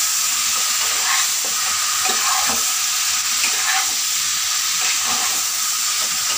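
Pangas fish pieces in masala frying and sizzling in a non-stick pan on a gas stove, stirred with a spatula, with scattered short scraping strokes over a steady sizzle.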